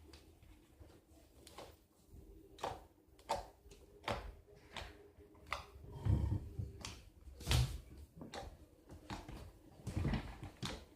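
Fluffy slime, made from white glue and shaving foam, being squeezed and poked by hand for ASMR: irregular soft squelches, crackles and little pops, a few with a low thud.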